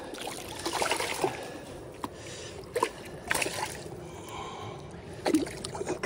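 Water splashing and trickling at a rocky river edge as a small hooked fish is pulled in by hand on the line, with several short, sharp splashes.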